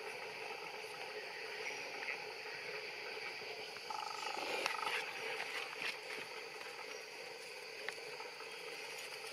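Steady outdoor ambience with a constant drone, broken about four seconds in by a short animal call of under a second, with a few light clicks.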